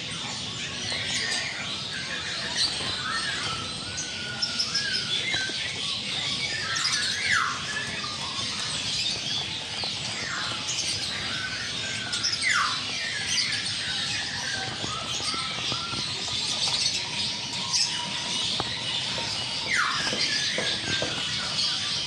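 Dense, continuous chorus of many caged birds chirping and squawking at once, with a few sharp calls that fall in pitch.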